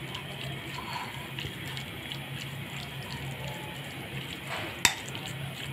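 Fork stirring spiced raw chicken pieces in a glass bowl: soft, wet mixing sounds, with one sharp clink of the fork against the glass bowl near the end.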